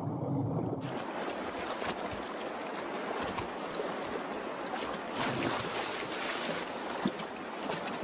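A shallow salmon creek rushing steadily over rocks, after a muffled low rumble in the first second. A few splashes stand out as a black bear cub lunges at salmon in the water.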